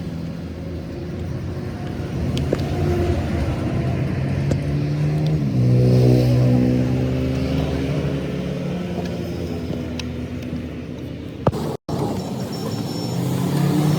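A vehicle engine running steadily, picking up speed about five and a half seconds in. The sound breaks off completely for a moment near the end.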